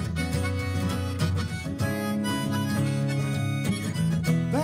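Harmonica playing a held melody over strummed acoustic guitars, the instrumental intro before the first sung verse of a folk song.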